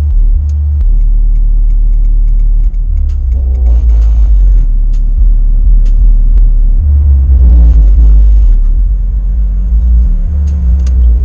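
Car audio subwoofer playing very deep, bass-heavy music, the low notes stepping between a few pitches in a bass line. Two brief wavering vocal sounds, about 3.5 and 7.5 seconds in.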